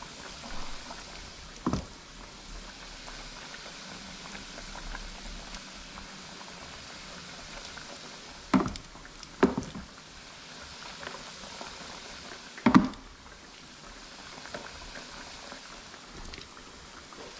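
Batter-coated chicken wings deep-frying in hot oil, sizzling steadily, with a few short sharp knocks, the loudest about 13 seconds in.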